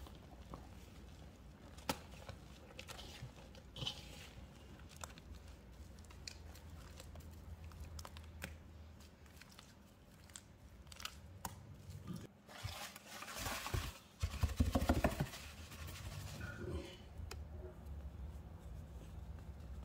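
Small wet crackles and clicks from a thick baking soda and cleaning-liquid paste being worked by hand. About 13 seconds in comes a louder couple of seconds of crunchy, crackling rustle as more baking soda and Zote soap flakes go into the paste.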